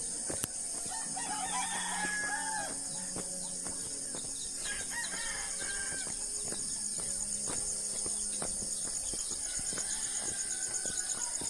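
A rooster crowing, a bending call about a second in with fainter calls later, over a steady high drone of insects.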